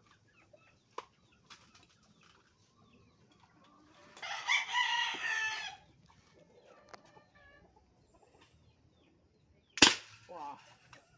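A rooster crows once, for about a second and a half, a few seconds in. Near the end, the homemade PVC toy rifle fires a single sharp shot, the loudest sound here, followed by a few short clucks.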